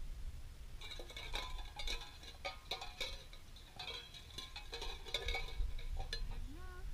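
Tin cans on a rope rattling and clinking against each other, a run of metallic knocks lasting about five seconds.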